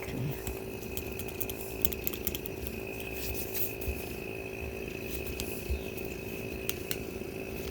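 Scattered small clicks and taps of hand work with a knife on an old rubber tire valve stem, over a steady mechanical hum.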